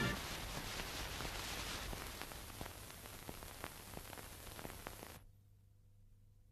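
Hiss and crackle of an old film soundtrack, with scattered clicks, gradually fading and cutting off to silence about five seconds in.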